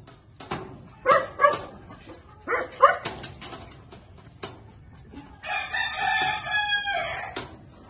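A rooster crows once in the second half, one long call of about two seconds. A few short sharp animal calls come before it.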